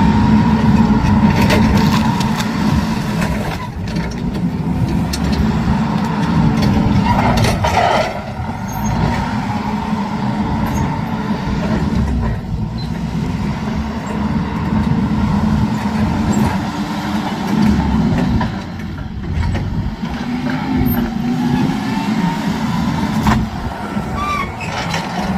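Forklift engine running hard, revving up and down every few seconds as it works.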